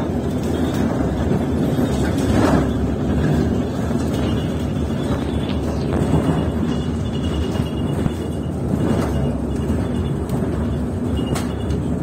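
Steady engine and road rumble heard from inside a moving vehicle.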